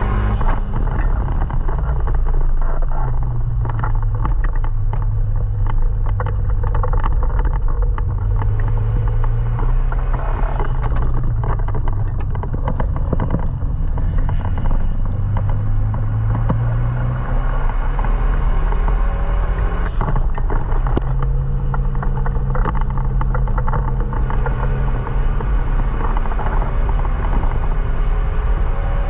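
Renault Mégane Sport 225's turbocharged 2.0-litre four-cylinder engine under hard acceleration on track. The engine note climbs repeatedly and drops back at each gear change, over steady road noise.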